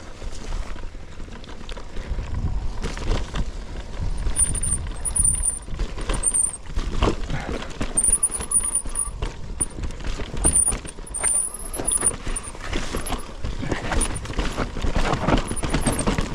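Mountain bike riding fast down a rough grass trail: a steady rumble of tyres and suspension over bumpy ground, with the chain and frame rattling in many short knocks. A thin high squeal comes and goes from about four seconds in.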